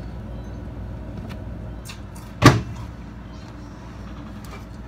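A steady low hum with a single loud thump about halfway through, and a few faint clicks.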